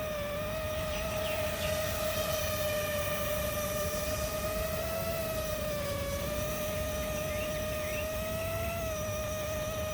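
A 5-inch FPV quadcopter's brushless motors and propellers whining steadily, the pitch drifting slightly up and down as the throttle shifts, over a low rumble.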